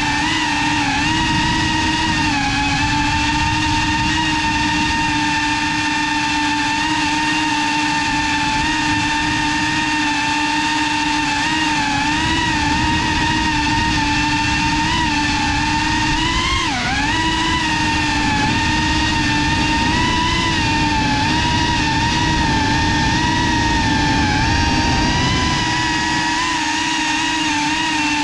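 Motors and ducted propellers of a GEPRC CineLog35 cinewhoop FPV drone whining steadily in flight, the pitch wobbling slightly with throttle, with a quick dip and rise about seventeen seconds in, over a low rush of air.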